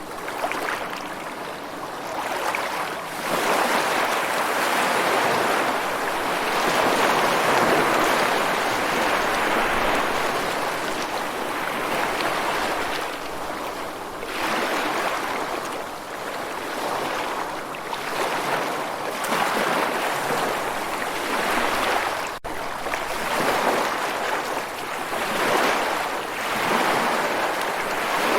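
Surf: waves washing in, the rush of water swelling and ebbing every few seconds, with a momentary drop-out about 22 seconds in.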